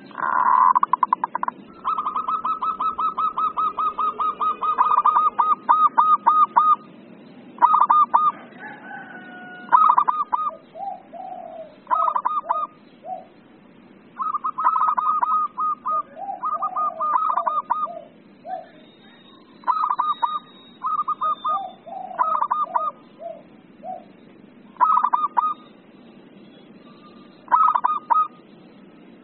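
Zebra dove (local perkutut) singing. It gives phrases of rapid, evenly repeated short cooing notes, starting with a loud call and a long run of notes, then shorter phrases every few seconds, some ending in lower notes.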